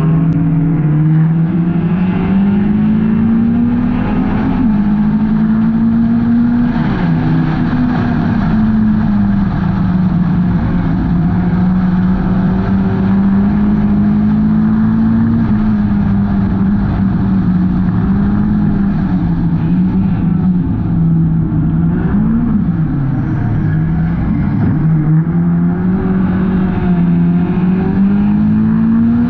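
Hornet-class race car engine running at racing speed, its pitch rising and falling every few seconds as it accelerates and lifts off, with a few sharper dips. A steady rushing noise runs underneath.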